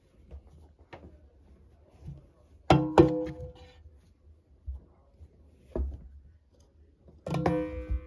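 Laundry being pulled around inside a front-loading washing machine's drum. There are two sharp knocks a few seconds in and another near the end, each ringing briefly at the same pitch, with a dull thump between them.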